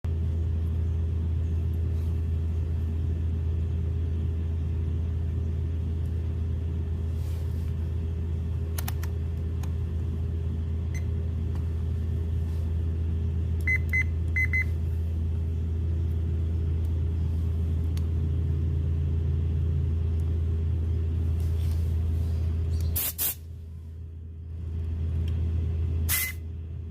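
Car engine idling with a steady low drone. Three short high beeps come about halfway through. Near the end a sharp click is followed by the drone dropping in level, then building again.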